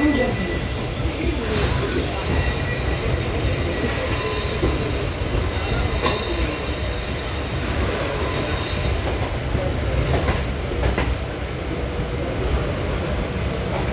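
Passenger train running along the track, heard from on board: a steady low rumble of wheels on rails with a few sharp clicks over rail joints.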